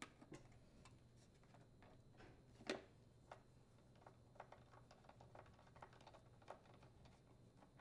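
Faint, irregular small clicks and taps of a plastic ignition module cover being seated on a Husqvarna leaf blower and its screw driven in with a T27 Torx bit, with one louder knock a little under three seconds in.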